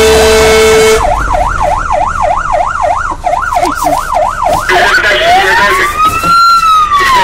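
Fire engine's warning signals: a one-second air horn blast, then the electronic siren in a fast yelp of about three rises and falls a second. Near the end it switches to a slow wail that climbs and falls once, heard from inside the cab.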